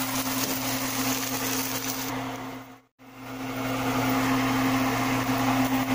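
Fish fillet sizzling as it fries skin-side down in oil in a nonstick pan, over a steady low hum. The sound cuts out abruptly for a split second about three seconds in, then comes back.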